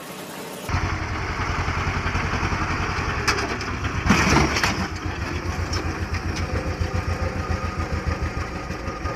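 An old tractor's engine running with a rapid, even low chugging that starts abruptly less than a second in. There is a brief louder noise about four seconds in.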